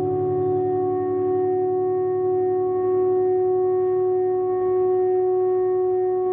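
Electric guitar through a small amplifier holding one long, steady note with its overtones ringing on; a lower, wavering tone underneath fades away about a second in.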